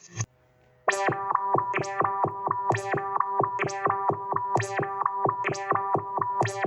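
Electronic siren sounding a fast repeating pattern of short fixed-pitch tones, starting just under a second in, with a sharp accent about once a second.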